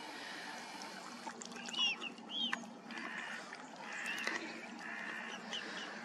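Waterbirds calling on a lake: two short arching calls about two seconds in, then more calling around four to five seconds, over a steady low background hum.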